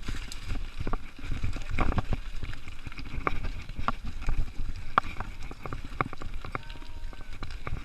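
Mountain bike ridden over rough, rutted ground: irregular rattling clicks and knocks from the bike over a low rumble of tyres and wind.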